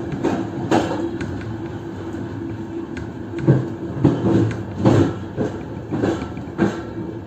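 InterRegio passenger train running, heard from inside the carriage: a steady rumble and hum with irregular clunks as the wheels cross rail joints and points, the loudest about three and a half to five seconds in.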